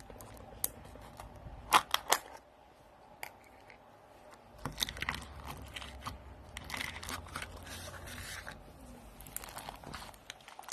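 Packaging being crinkled and torn, with a few sharp clicks in the first couple of seconds and longer stretches of rustling after that.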